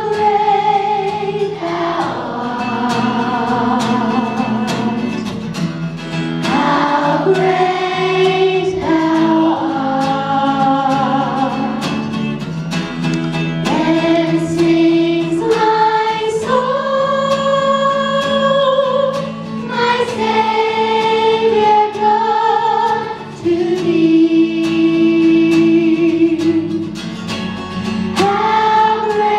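Children's choir singing a melody in long held notes.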